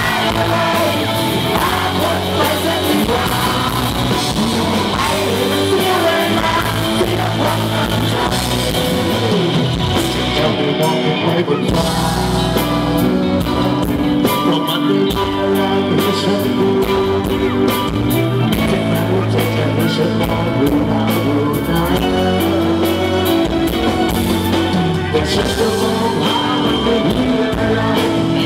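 Live pop-rock band performance: a male vocalist singing over electric guitar, keyboard and drums, amplified through the stage PA.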